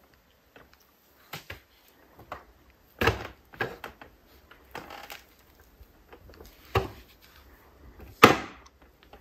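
Plastic diaper pail being knocked and handled as a toddler reaches into it and drops diapers in: several separate sharp knocks with faint ticks between, the loudest near the end.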